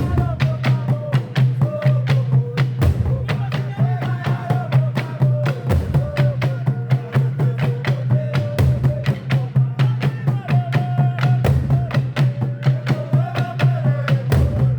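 African drumming music: fast, even drum strokes over a steady bass, with a melody wavering above and a deep low hit about every three seconds.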